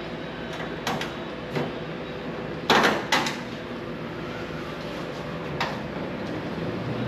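A few sharp knocks and clanks from fitting and bolting a sheet-metal patch panel onto the body, the two loudest close together about three seconds in, over a steady background hum.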